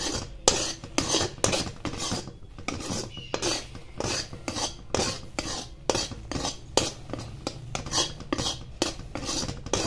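Metal spoon scraping and stirring round a kadhai, about two strokes a second, as milk and milk powder are cooked down into instant khoya.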